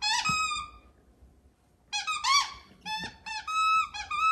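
Staffordshire Bull Terrier puppy chomping on a squeaky dog toy, setting off quick runs of high squeaks. There is a burst at the start, a pause of about a second, then repeated squeaking to the end.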